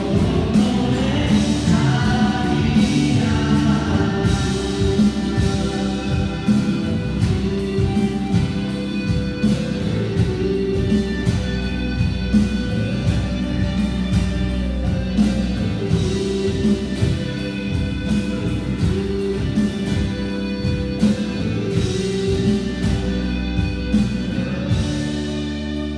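Several voices singing a Korean Christian worship song together over instrumental accompaniment with a steady beat.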